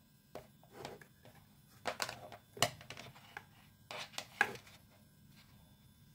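Scattered clicks and light taps of wires and an alligator clip lead being handled on a cutting mat, about half a dozen, the sharpest about two and a half seconds in and near the end.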